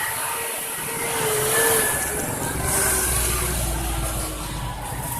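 Road traffic noise with a vehicle passing, its low engine rumble swelling in the second half, and faint voices in the background.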